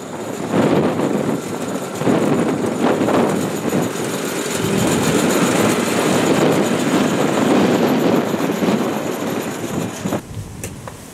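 Engine of a small ride-on farm carrier running and rattling as it drives past close by; the sound drops away about ten seconds in as it moves off.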